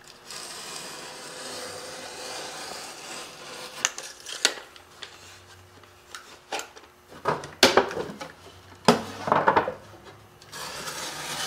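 Hand tools rubbing and scraping on a piece of drywall as it is measured and marked out: a steady scrape for the first three and a half seconds, then scattered sharp clicks and knocks, with short scrapes about nine seconds in and near the end.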